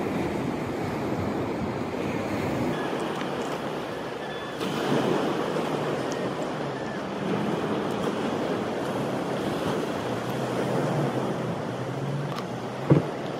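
Surf washing onto a beach, a steady rushing noise, with some wind on the microphone. A single sharp knock near the end.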